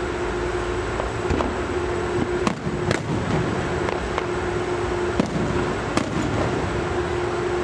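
Fireworks going off: about seven sharp, separate bangs at irregular intervals, over a steady background noise with a constant hum.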